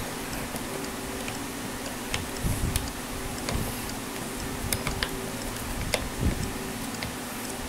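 Light, irregular metallic clicks and ticks of guitar strings and a hex key against a Floyd Rose floating tremolo bridge during re-stringing, over a steady low hum.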